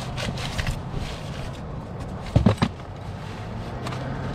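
A folded camp chair being handled at an open car boot: light clicks and scrapes, with two loud knocks about two and a half seconds in, over a steady low hum.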